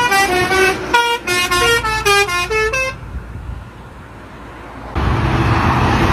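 A lorry's multi-tone telolet (basuri) horn playing a quick tune of short stepping notes with a brief break about a second in; the tune stops about three seconds in. About five seconds in, steady engine and road noise comes in suddenly.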